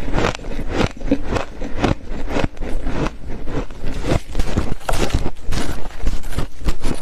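A person chewing freezer frost, a dense run of irregular crunches.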